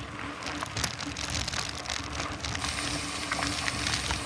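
Mountain bike rolling along a dirt trail: a steady crackle of tyres on grit and small stones, over a low rumble of wind on the microphone.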